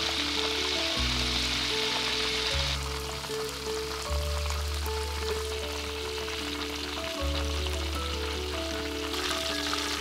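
Khuushuur (Mongolian meat pastries) deep-frying in a pot of hot oil, a steady sizzle that is louder in the first few seconds and again near the end. Background music with a low bass and sustained notes plays throughout.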